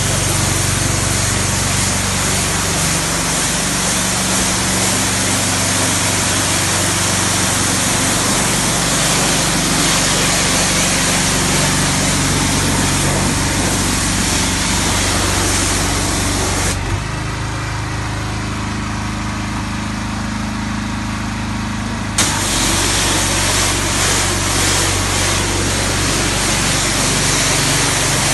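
Pressure washer jet spraying onto artificial grass over the steady running of the machine's engine. About two-thirds of the way through the spray stops for about five seconds, leaving only the engine, then starts again with a sharp click.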